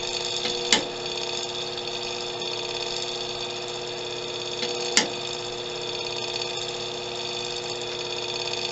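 Steady electrical hum and whine from a WWII Wireless Set No. 19 radio station with its RF amplifier and vibrator power unit running, keyed in transmit. Two sharp clicks come from the controls, one within the first second and one about five seconds in.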